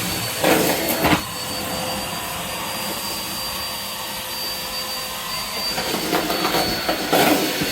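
Hetty cylinder vacuum cleaner running steadily, with a thin high whine over its motor noise. It surges louder for about a second, half a second in, and again near the end.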